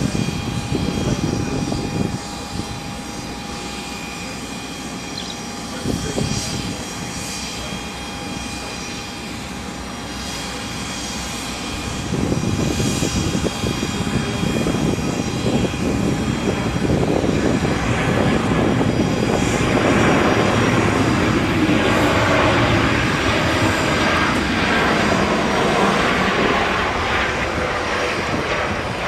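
Jet engines of a landing Boeing 737-800 airliner on approach: a steady whine over a rushing roar that grows louder from about twelve seconds in and is loudest near the end as the aircraft comes in to touch down.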